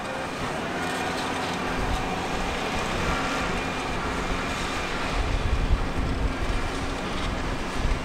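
Case Puma tractor diesel engines running as they plough with Kverneland reversible ploughs. The engine note dips and then rises in the first second, and a low rumble swells about five seconds in.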